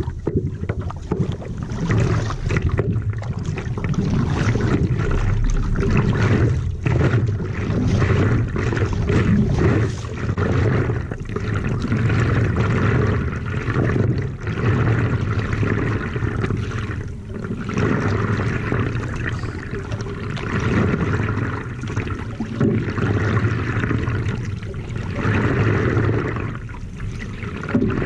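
Water rushing and splashing along a stand-up paddleboard's hull as it is paddled, swelling with each paddle stroke about every two to three seconds. Heard close up from the board's nose.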